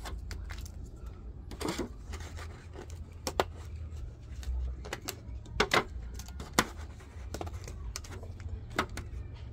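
Handling noise from a washing machine control board: irregular sharp clicks, taps and short rustles, a few louder clicks in the middle, over a steady low rumble.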